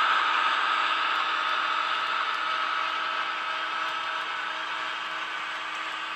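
Diesel engine sound of a Class 251 Blue Pullman, played by the N gauge model's sound decoder through its small onboard speaker as the train runs. It is a steady engine note that fades gradually as the train moves away.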